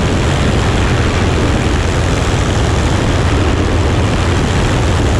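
Piper Pacer's piston engine and propeller running steadily in flight: an even, loud drone with a strong low hum under a rushing hiss, unchanging throughout.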